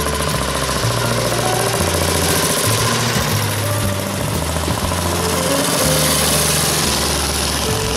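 Vintage motorcycle engines running as the bikes ride past one after another, under background music with a stepping bass line.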